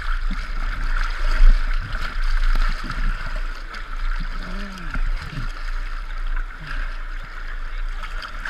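Fast whitewater river current rushing and splashing right around a microphone riding at water level, with a steady low rumble of water buffeting the camera.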